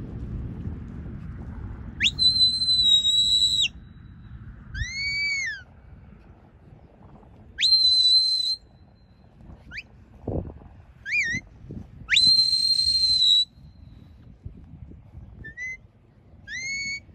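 A shepherd's whistle commands to a working sheepdog: three long, level, high blasts, with short arching and quick rising whistles between and after them.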